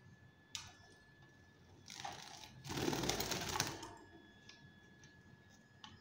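Fischer's lovebirds moving in a wire cage: a few light clicks, then about two seconds in a burst of rapid fluttering, loudest for about a second and a half in the middle, then more light clicks near the end.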